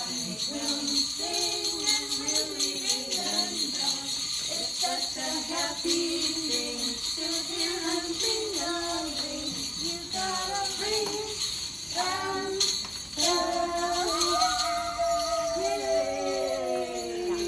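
A song: a singing voice carrying a melody over steady jingling percussion.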